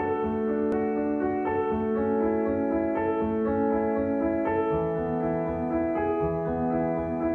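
Background music: a slow, gentle piano melody over held chords.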